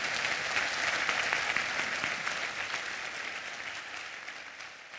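Audience applauding, a dense patter of many hands clapping that gradually dies away over the last couple of seconds.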